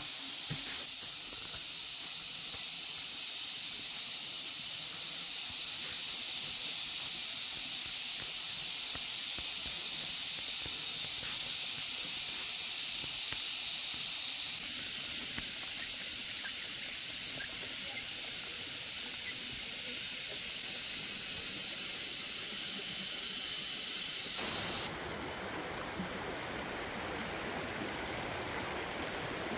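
Steady outdoor hiss with no distinct events. About 25 seconds in it cuts abruptly to a fuller, lower rushing sound like stream water.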